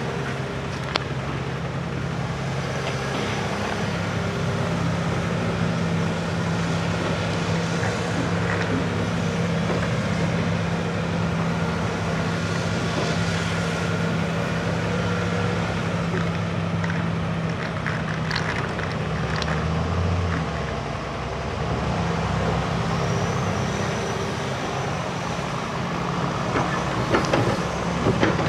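Diesel engines of a Hitachi Zaxis 280 LCN hydraulic excavator and a tractor running steadily, with the engine note shifting about two-thirds of the way in. Scattered clanks and rattles come from loading a tipper trailer, mostly near the end.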